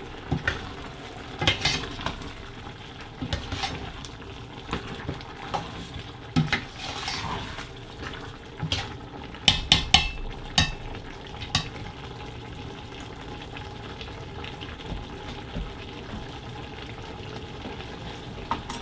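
Metal spoon stirring curry lamb in a stainless steel pot, scraping and clinking against the pot, with a few sharp knocks about halfway through. The stirring stops about two-thirds of the way in, leaving the steady low sizzle of the pot cooking on the hob.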